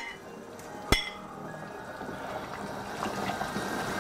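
A utensil knocks twice on the rim of a cooking pot, about a second apart, as fried vegetables are tipped into simmering broth, followed by soft liquid bubbling and splashing in the pot. Faint background music underneath.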